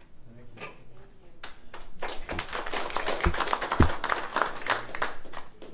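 A small audience clapping, building up about a second and a half in and running for about four seconds, with two low thumps in the middle.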